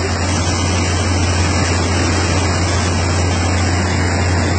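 Turbulent river water rushing and splashing over the edge of a boat's deck, over the steady low drone of the boat's engine.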